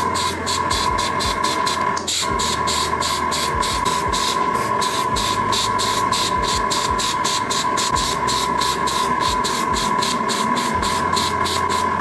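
Background electronic music with a steady, fast beat and a bass line.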